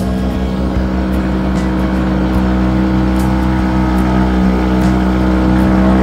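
Parsun outboard motor running steadily at an even throttle, driving a small wooden boat along.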